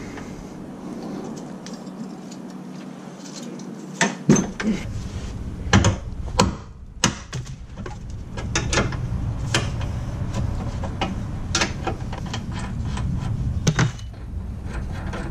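Wrench clicking and knocking against the rear lateral link bolt and suspension parts while the bolt at the subframe is being loosened: irregular sharp metal clicks, the loudest cluster about four to seven seconds in, over a low steady hum.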